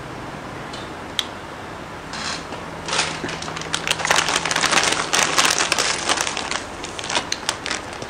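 Potato chips crunching and crinkling as they are eaten: a dense crackle that starts about three seconds in and thins out near the end.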